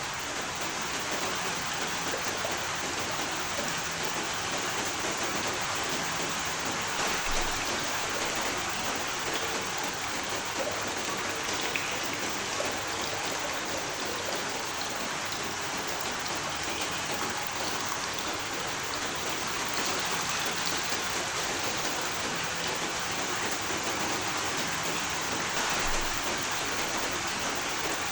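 Steady rain falling, with an even hiss and a few distinct drops landing on a surface.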